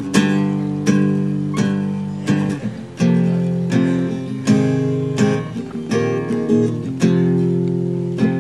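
Acoustic guitar strumming chords in a steady rhythm, about two strokes a second, with the chord changing every couple of seconds.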